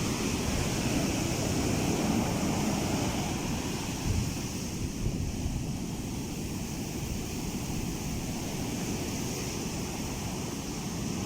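Rough sea surf breaking steadily, with wind rumbling on the microphone.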